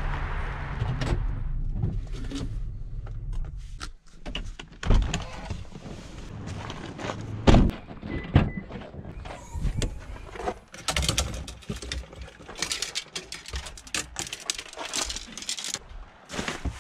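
A low steady hum stops about two seconds in, followed by a run of knocks, clicks and rattles, the loudest thunk about halfway through and a busier stretch of clicking and rustling in the second half.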